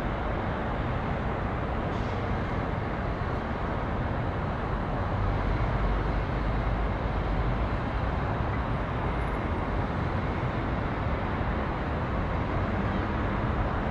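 Steady city ambience dominated by a continuous low rumble: a police helicopter circling overhead, mixed with traffic noise.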